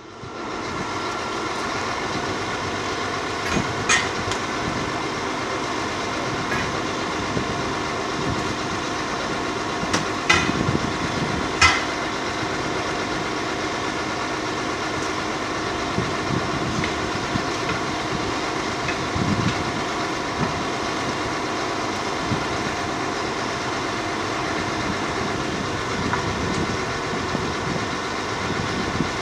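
A vehicle engine running steadily, with a few sharp knocks scattered through.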